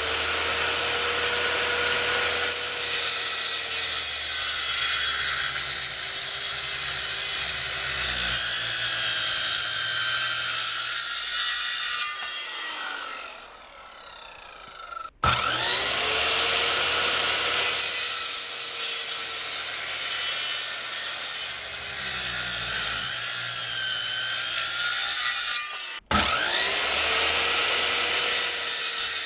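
JELLAS 13-amp corded circular saw cutting into a 6x6 wooden post: a loud motor whine with the blade ripping through the wood. About twelve seconds in the trigger is let go and the blade coasts down with falling pitch. The saw starts again a few seconds later, stops for a moment near the end, and starts once more.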